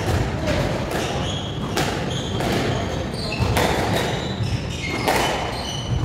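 Squash ball being hit by rackets and smacking off the court walls, a run of sharp knocks about a second apart, with short squeaks of shoes on the wooden court floor.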